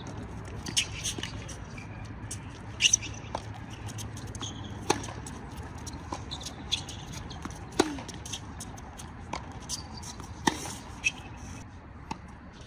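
Tennis rally on a hard court: a tennis ball struck by racquets and bouncing, heard as sharp single knocks every second or two, with the loudest hits about three, eight and ten seconds in.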